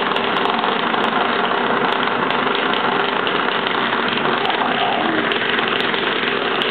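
Vibrating ladybug massager running on a wood floor: a loud, steady buzz.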